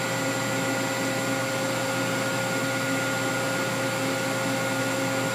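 Cincinnati Milacron Avenger 250MT CNC lathe powered up, giving a steady hum with several steady tones, while its hydraulic tailstock body is traversed. The sound stays even throughout.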